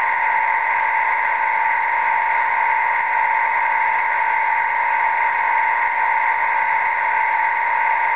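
Simulated Class 25 diesel engine idling, played by a Loksound DCC sound decoder through a model locomotive's small speaker: a steady, unchanging hum with a strong mid-pitched tone and no deep bass.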